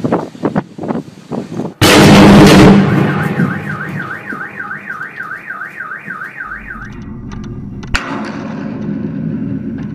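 Electrical arcing on a power line: sharp crackling pops, then a sudden loud blast lasting about a second. A car alarm then warbles for about four seconds, and another sharp crack comes near the end.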